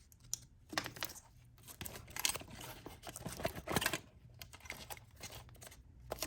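Packaging being torn and crinkled open by hand in several short bursts.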